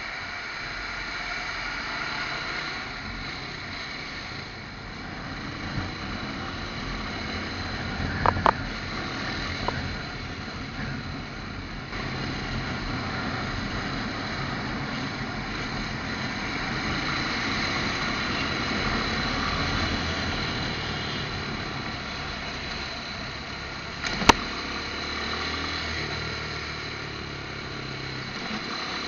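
Motorcycle riding through city traffic: its engine running under a steady wash of road and traffic noise. Two short, sharp sounds stand out, one about eight seconds in and a louder click about twenty-four seconds in.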